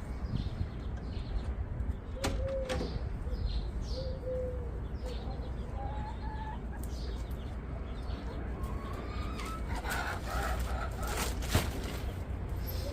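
Backyard chickens clucking in short calls every second or so, busier near the end, over a steady low rumble, with a few sharp clicks.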